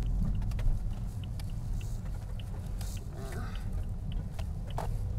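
Low, steady rumble of road and engine noise inside a moving car's cabin, with faint scattered ticks.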